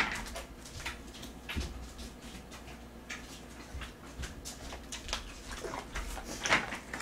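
Faint, scattered knocks, clicks and rustles of someone moving about and handling things. Near the end comes a sharper click or two as a plastic soda bottle and its cap are handled.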